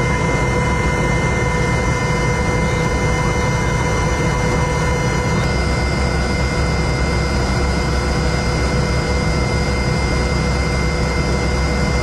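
AgustaWestland AW101 helicopter's turbine engines and rotor running in flight: a steady loud drone with a constant high whine. The low rumble grows heavier about halfway through.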